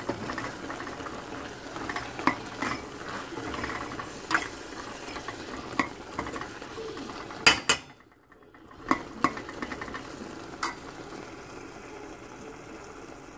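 Beef and spice masala sizzling in a stainless steel pot while being stirred with a metal ladle. The ladle clinks and scrapes against the pot every second or two, loudest about seven and a half seconds in. The sound drops out briefly just after that.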